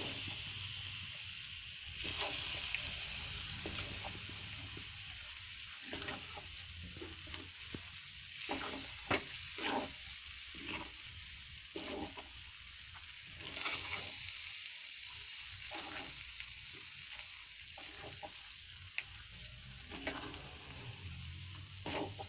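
Moong dal paste cooking with ghee and milk in a pan, sizzling steadily while a spatula stirs it. Irregular scrapes and knocks of the spatula against the pan come every second or so.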